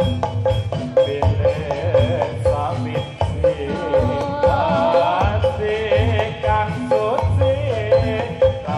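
Javanese gamelan music accompanying a jathilan dance: hand-drum strokes and a metallophone note repeating about twice a second under a wavering, ornamented melody with pitch slides.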